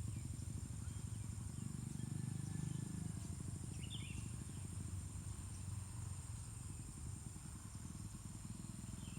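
Insects, crickets or cicadas, droning steadily in a high-pitched chorus over a low rumble, with a brief chirp about four seconds in.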